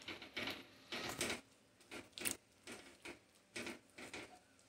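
A silicone spatula stirs and scrapes a thick, moist grated-beetroot mixture around a metal kadhai, making a string of short, soft scrapes about two or three a second.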